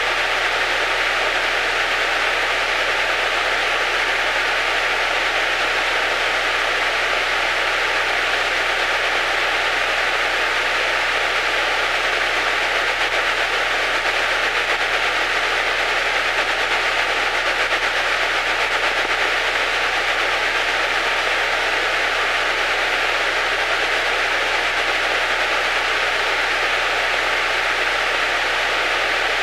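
Steady hiss of static on the aircraft's radio and intercom audio, unbroken and even. It is the radio hissing fault that the crew suspected came from a headset jack.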